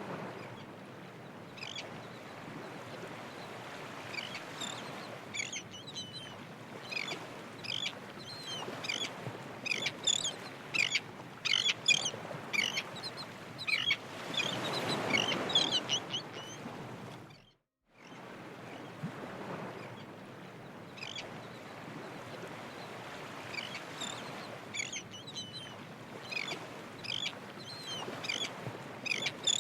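Birds calling in many quick, short chirps over a steady rushing noise that swells for a couple of seconds around the middle. The sound cuts out briefly about two-thirds of the way through, then the same calls and noise resume.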